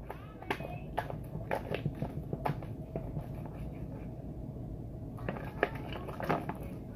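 Hands squishing and kneading sticky glue slime in a plastic bowl, wet smacking clicks at uneven intervals.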